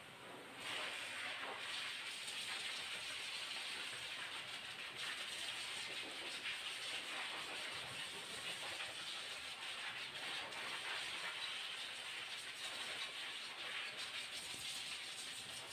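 A pet grooming blow dryer blowing air as a steady hiss, switched on about half a second in.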